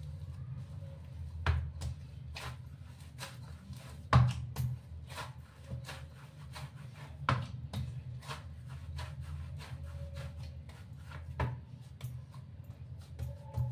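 Hands kneading dough in a steel bowl: irregular soft slaps and knocks as the dough is pressed and folded, with a few louder thumps against the bowl, the loudest about four seconds in.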